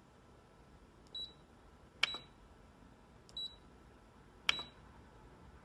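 Canon imageRUNNER Advance copier control panel beeping as keys are pressed to enter a number: four short, high beeps about a second apart, the second and fourth with a sharp key click.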